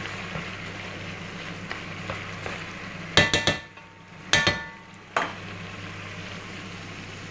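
Chicken pieces frying in oil on high heat in a stone-coated pot, a steady sizzle. A metal spatula clinks against the pot and its rest in a few short ringing knocks between about three and five seconds in.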